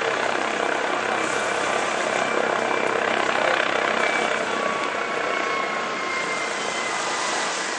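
Helicopter hovering low over a yacht's helipad, its rotor and turbine running steadily; the sound eases off slightly toward the end.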